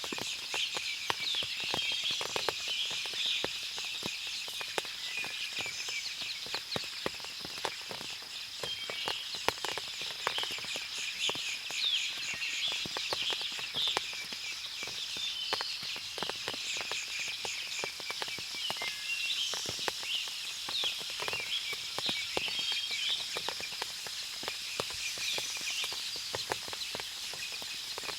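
Forest ambience after rain: many birds chirping and calling over a steady high-pitched hum, with frequent light clicks of water dripping from the trees.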